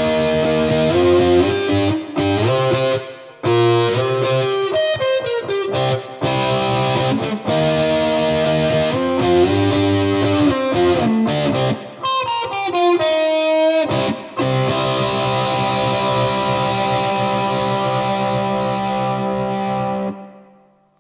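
Flight Vanguard solid-body tenor electric ukulele strummed in chords through crunch distortion and a phaser pedal, played through a guitar amp. Several chord changes, then a final chord left ringing for several seconds before it is stopped near the end.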